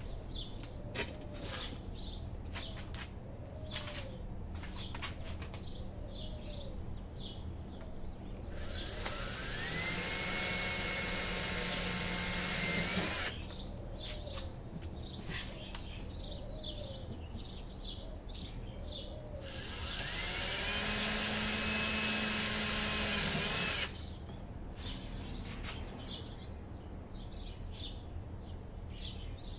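A cordless drill boring small pilot holes in two runs of about four to five seconds each; each time the motor spins up with a rising whine and then holds steady. Between the runs, birds chirp and one coos over and over.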